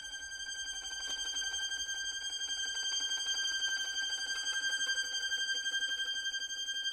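Violin holding a single very high sustained note with slight vibrato, gradually swelling in loudness, with no other instruments playing.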